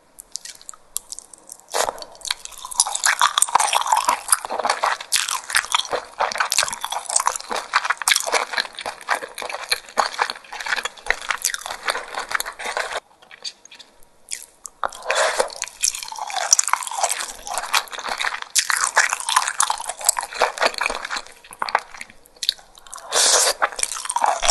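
Close-miked wet chewing and mouth sounds of a person eating saucy grilled scallops: dense runs of squishy, clicking smacks, with a pause of about two seconds around the middle.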